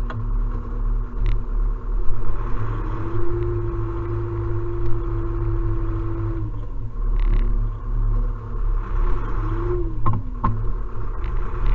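Tractor engine running, heard inside the cab: a steady low rumble whose pitch rises about two and a half seconds in, holds, and drops back a few seconds later, with a couple of knocks near the end.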